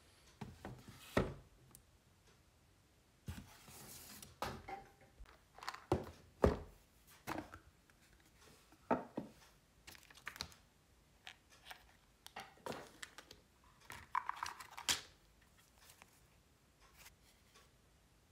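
Hands handling a small cardboard board-game box and its contents: scattered taps, clicks and short rustles at irregular intervals as the box is moved and opened and its cards and tokens are handled.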